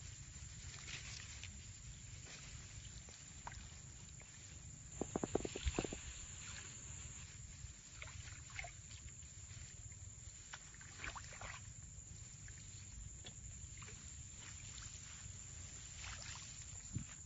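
Waterside ambience: a steady low wind rumble on the microphone with light water lapping and scattered faint ticks. A quick run of louder knocks comes about five seconds in, and another near the end.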